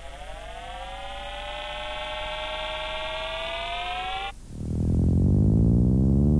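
Synthesizer sound effects: an electronic tone glides slowly upward while the magic transforms the sledge, then cuts off suddenly about four seconds in. A loud, low, wavering electronic rumble follows as the sledge's rocket motors fire.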